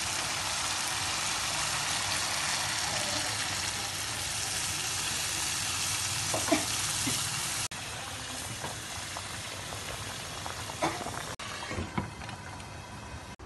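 Chicken curry sizzling and bubbling in hot oil in a frying pan: a steady hiss, with a sharp click about six and a half seconds in. After a cut about eight seconds in the frying goes on more softly, with a few scattered clicks.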